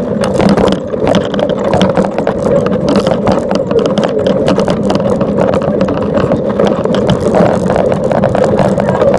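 Land Rover engine running steadily with road noise as the vehicle drives, a continuous loud drone with many short irregular crackles over it.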